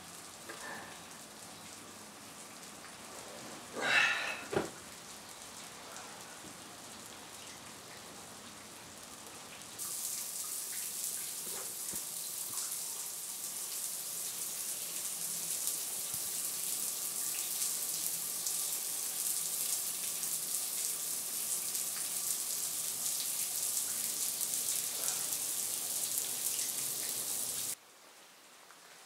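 Shower head spraying water, a steady hiss that starts abruptly about ten seconds in and cuts off suddenly near the end. Before it there is quiet room tone with one brief sound about four seconds in.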